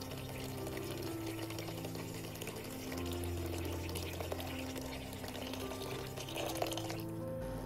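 Kitchen tap running, cutting off suddenly near the end, over soft background music with long held notes.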